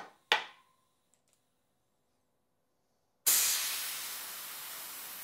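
Two sharp clicks, then about three seconds in a sudden loud hiss of air rushing out of a bicycle wheel's tyre, easing slightly. It sounds like a puncture, but the owner finds it was trapped air escaping, not a puncture.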